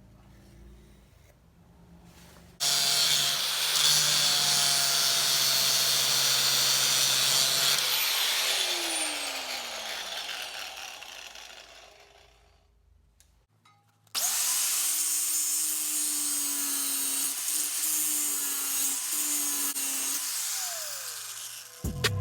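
A handheld electric power tool run twice. Each time it runs loud with a high hiss for several seconds, then winds down with a falling whine as the motor coasts to a stop.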